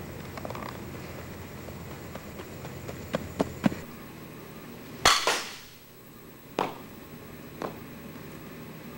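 A softball bat striking a ball in an indoor batting area: one loud, sharp crack with a brief ring about five seconds in, followed by two fainter knocks about a second apart. A few light clicks come before it.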